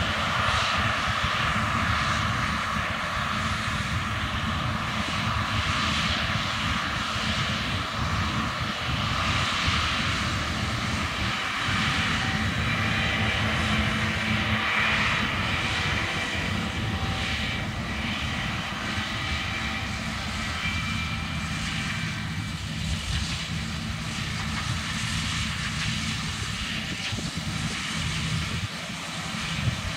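John Deere combine harvester running steadily while harvesting: a continuous engine drone with several steady high whining tones above it.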